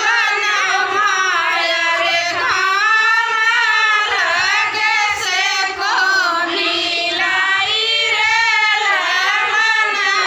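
A woman singing a folk wedding song (vivah geet) without instruments, in long held lines that waver up and down in pitch.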